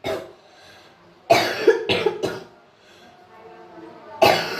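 A person coughing in fits from a cold: one cough at the start, three or four in quick succession about a second and a half in, and another fit beginning near the end.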